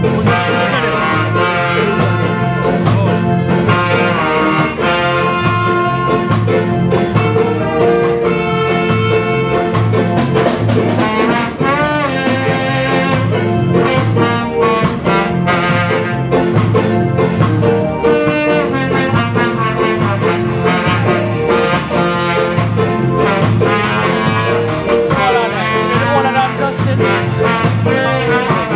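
School band playing live: a horn section of trumpet, trombone and saxophones plays the melody over electric guitars, bass and drums keeping a steady beat.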